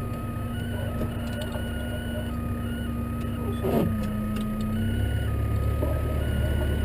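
Case tractor engine running steadily, with a brief sweep in its note about four seconds in, after which the engine sound gets fuller and heavier.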